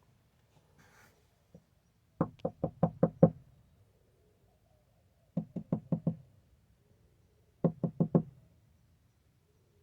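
A squirrel gnawing at a hard nut shell: three quick runs of sharp knocks, about six a second, each run lasting under a second and a half.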